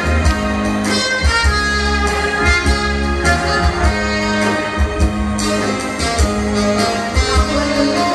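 Live band music: a drum kit keeping a steady beat under a saxophone and brass melody.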